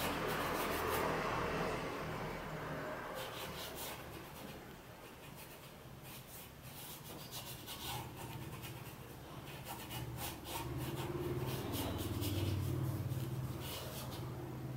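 Paintbrush rubbing and scrubbing oil paint onto canvas in quick, irregular short strokes. A passing vehicle fades out over the first couple of seconds, and a low hum comes back later on.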